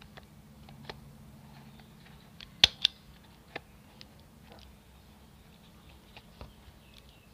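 Hand stapler clicking as staples are driven through folded banana leaves, with one loud double click about two and a half seconds in and a few lighter single clicks before and after.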